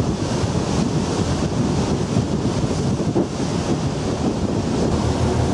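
Wind buffeting the microphone over the wash of the open sea, a steady rushing noise that is heaviest in the low end.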